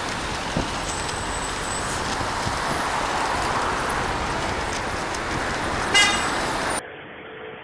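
Steady road traffic noise, with a short vehicle horn toot about six seconds in. Shortly after, the sound cuts off abruptly to a quieter, duller background.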